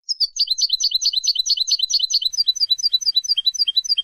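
European goldfinch singing: a fast run of repeated high, down-slurred notes, slowing slightly about halfway through.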